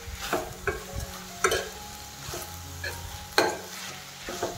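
A metal spoon stirs and scrapes vegetables in a metal kadhai, with irregular scrapes roughly every half second. The loudest come about one and a half and three and a half seconds in. Under them is a steady sizzle of the vegetables frying in oil.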